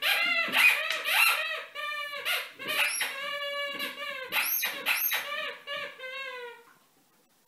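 Squeaky toy squeaked over and over as a Border Collie chews it: a rapid run of short, high squeaks, several a second, that stops near the end.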